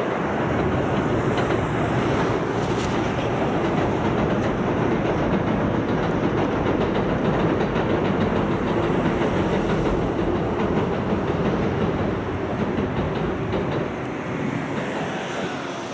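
Kintetsu electric train running across a steel girder railway bridge: a steady rumble with wheel clatter, easing off in the last few seconds as the train passes.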